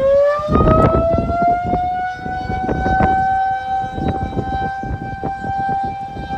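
Outdoor warning siren winding up: its tone rises and settles into a steady wail within the first couple of seconds, with a gusty low rumble underneath.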